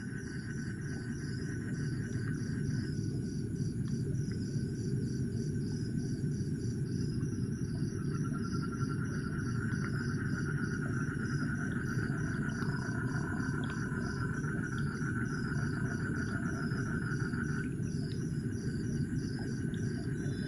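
Night insect chorus of crickets chirping in a regular pulsing rhythm with a steady high trill, over a continuous low rumbling noise that is the loudest sound.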